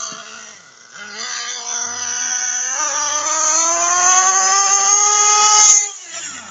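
3.5 cc two-stroke nitro engine of an RC buggy revving up as the buggy accelerates toward the microphone, its high-pitched whine climbing steadily in pitch and getting louder. Just before the end it passes close by and the pitch and level drop sharply.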